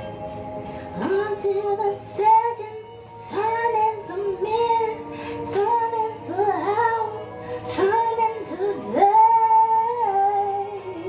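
A song playing: a sung vocal melody in held phrases over steady instrumental backing.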